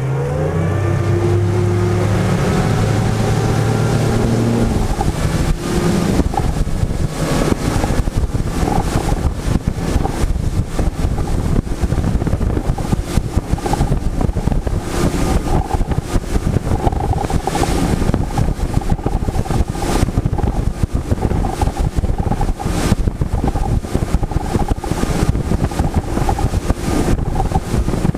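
Motorboat engine speeding up, its pitch rising in the first second, then the boat running fast, with heavy wind buffeting the microphone.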